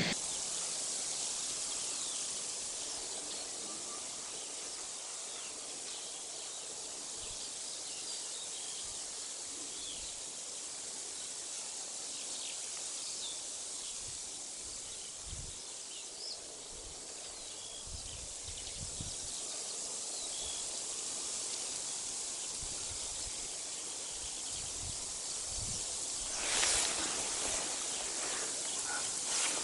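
Steady outdoor wind-and-rustle noise with faint, scattered chirps of small birds, and a louder rustling burst near the end.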